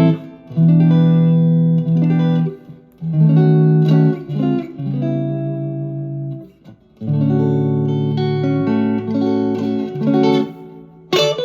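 Harley Benton TE-62CC Telecaster-style electric guitar with Roswell single-coil pickups, played through a Vox AC10 amp: chords and single notes struck and let ring, in phrases with two short breaks.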